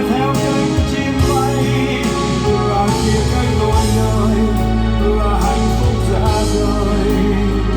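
Recorded music playing through Altec Lansing Valencia 846B loudspeakers with added dual subwoofers and super tweeters, with a melody in the middle over a strong, sustained bass.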